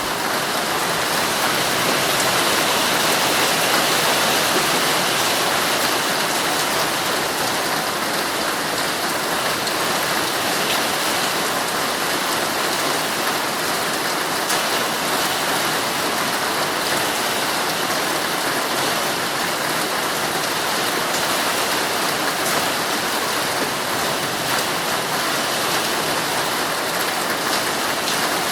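Heavy rain drumming steadily on a tent's fabric, heard from inside the tent.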